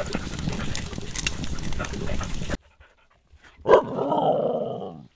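A wood fire crackles under a grill of wild boar meat, with many sharp pops, until it cuts off suddenly. Then a Japanese hunting dog calls out once: a sharp start drawn out into a pitched call of about a second.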